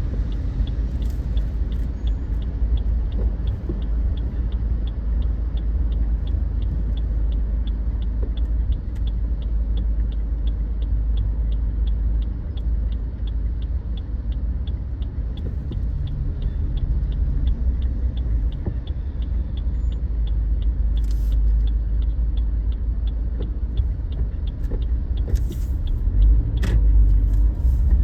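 Car on the road: a steady low rumble of engine and tyres, with a faint, regular high ticking of a few clicks a second running through it.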